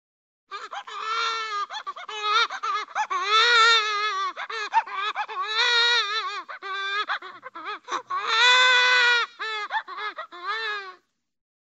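Cartoon-style baby crying sound effect: high-pitched, wavering choppy sobs broken by three longer, louder wails, stopping shortly before the end.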